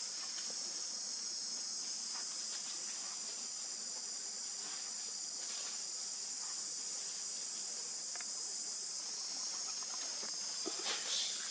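Steady, high-pitched insect chorus, with faint scattered clicks and a brief rustle near the end.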